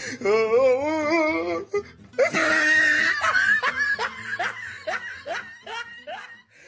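Laughter: a wavering, high-pitched giggle for about a second and a half, then a loud outburst about two seconds in, followed by a run of short laughs about three a second that fade out near the end.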